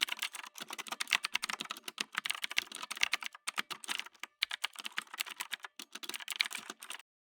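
Rapid typing on a keyboard, a fast run of key clicks with brief pauses, stopping suddenly near the end.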